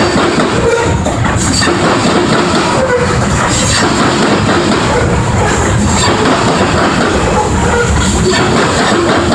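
Freight train of covered hopper grain cars rolling past close by: a steady rumble of steel wheels on the rails with clattering and occasional brief clicks.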